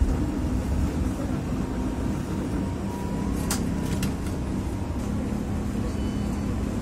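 Interior of a Tatra T3SUCS tram: a steady low running hum as the car rolls slowly up to a stop. A brief faint squeal is heard about three seconds in, and two sharp clicks follow about half a second apart.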